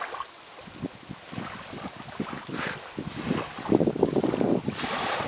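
Wind buffeting the camera microphone in irregular gusts, stronger about two-thirds of the way in.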